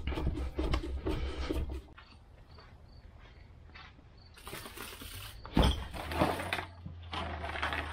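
A cardboard shipping box set down on a varnished wooden boat deck with a single sharp thump about five and a half seconds in, followed by a few small knocks as the box is handled.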